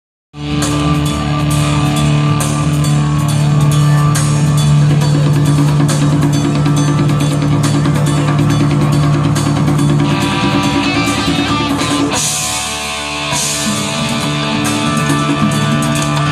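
Live rock band playing: a drum kit keeps a steady beat under held guitar and bass notes, with a change in the music and a cymbal wash about twelve seconds in.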